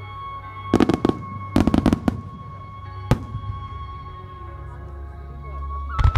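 Fireworks bursting: a cluster of rapid crackling reports about a second in and another about two seconds in, a single sharp bang near three seconds, and dense crackling starting just before the end. Under them runs music with a long held note.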